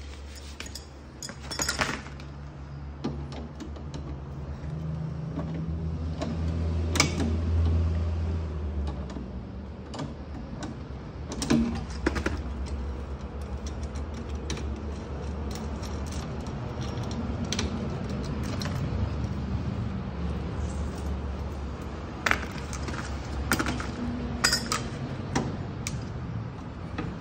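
Metal hand tools clinking and clicking against the nuts and fittings of a fridge compressor as they are worked loose, scattered irregular strikes over a steady low hum.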